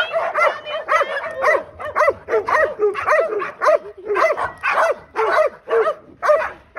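Dogs barking and yelping excitedly in a rapid, unbroken run of short, high-pitched barks, about three a second, stirred up by the sound of a cat in a box.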